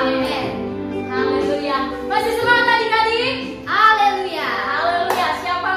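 Young women singing a Sunday-school worship song with electronic keyboard accompaniment holding steady chords beneath the voices.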